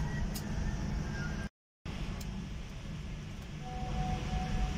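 Steady low rumble of cabin noise inside an Airbus airliner, heard from a passenger seat. The sound cuts out completely for a moment about a second and a half in, then carries on unchanged.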